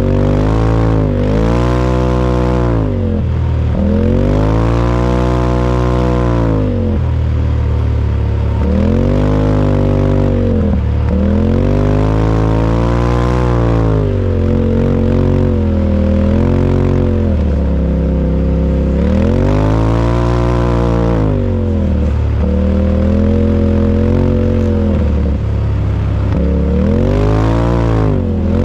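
UTV engine under repeated throttle, its pitch climbing and falling back over and over, each rise lasting a few seconds.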